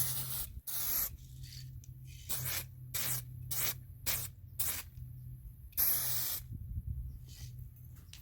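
Aerosol spray-paint can spraying in a series of short hissing bursts, each under a second, the longest about half a second some six seconds in, as a coat of paint is put on a small plastic part.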